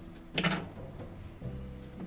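A metal drink can being forced open at its tab with a utensil: one short, sharp crack of the tab about half a second in. Soft background music underneath.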